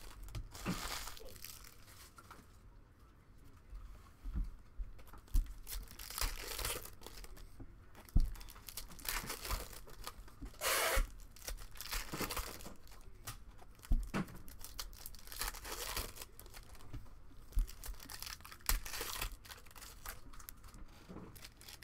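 Trading card pack wrappers being torn open and crinkled, in irregular rustling bursts, with a few light knocks.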